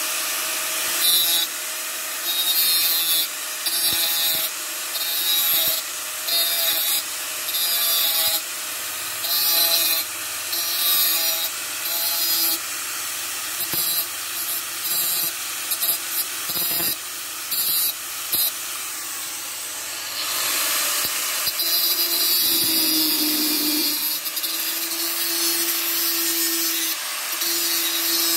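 Corded angle grinder running, its abrasive disc grinding metal pipe in repeated passes about a second long, over the motor's steady whine. From about two-thirds of the way in, the grinding becomes more continuous.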